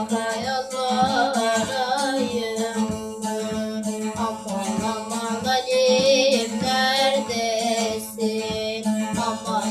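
A child singing while strumming a long-necked bağlama, with a steady drone note under quick plucked strokes and a wavering, ornamented vocal line.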